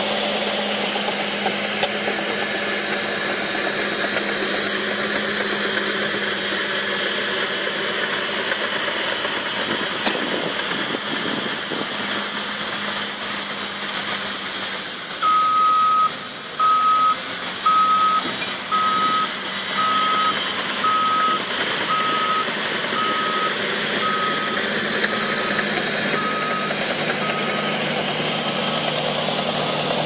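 Diesel engines of heavy earthmoving machines running steadily. From about halfway, a reversing alarm sounds a single high beep about once a second, the sign of a machine backing up.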